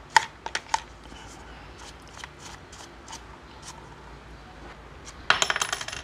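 Small paintbrush scrubbing lint out of a plastic hair dryer housing: a few sharp clicks of the brush against the plastic in the first second, light scattered ticks, then a rapid run of clicks near the end, the loudest part.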